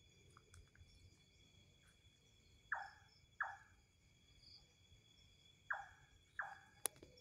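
An unidentified bird gives short calls that drop in pitch, in pairs: two pairs, about three seconds apart. Steady cricket trilling runs underneath, and a single sharp click comes near the end.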